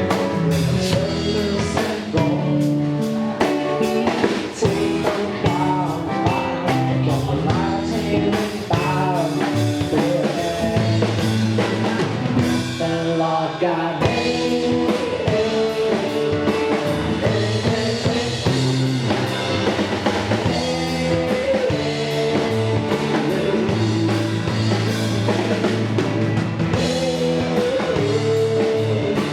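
A rock band playing live: drum kit, bass and electric guitars, with a bending melodic lead line over the band and no clear lyrics.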